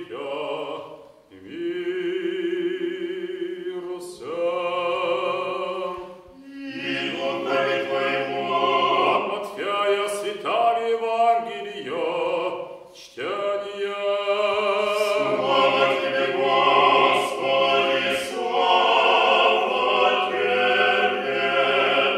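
Orthodox church singers chanting a cappella during a prayer service: several voices singing together in long held notes, phrase by phrase, with brief pauses between phrases.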